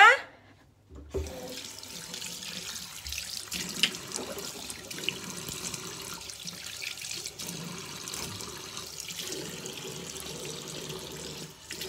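Water running steadily from a bathroom tap into the sink. It comes on suddenly about a second in and stops just before the end.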